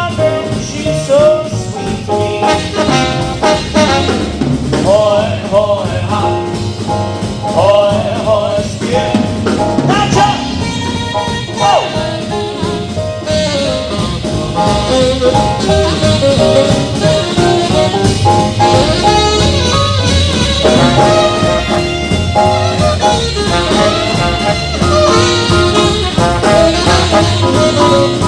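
Live swing band playing an instrumental passage: trumpet and trombone carry bending melodic lines over a steady bass and drum beat.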